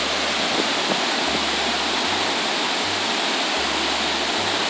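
Burney Falls waterfall pouring steadily: a constant, even rush of falling water.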